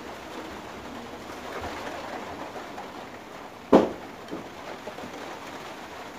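Low background noise with one sharp knock a little over halfway through.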